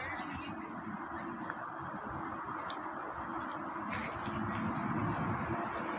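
Insects, crickets or cicadas, keeping up a steady high-pitched drone in the vegetation, with rustling underneath.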